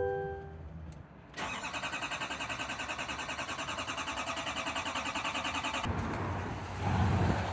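Electronic warning chime, then a 6.6 L Duramax diesel being cranked by its starter, pulsing rapidly for about four and a half seconds without catching before it stops. The truck cranks but will not start because the engine computer has taken an electrical spike for a false injector fault.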